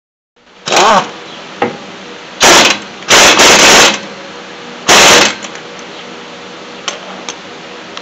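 Air impact wrench running lug nuts onto the wheel studs in about four short, loud bursts of rapid hammering, the first one rising in pitch as the tool spins up.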